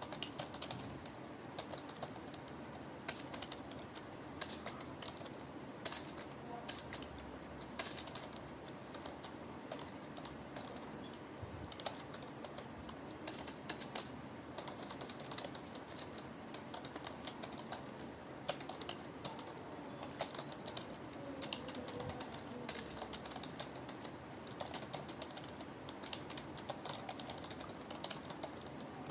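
Computer keyboard being typed on continuously in a quick, uneven stream of key clicks, with an occasional louder keystroke standing out, as in a timed typing speed test.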